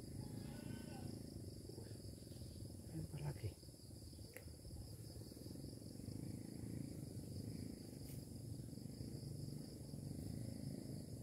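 Insects chirring steadily in a high, continuous pulsing trill over a faint low rumble.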